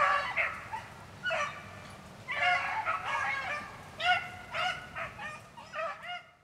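A pack of beagles baying on a rabbit's trail: short rising-and-falling calls, several dogs at once, coming in clusters. The baying is the sign that the hounds are running the rabbit.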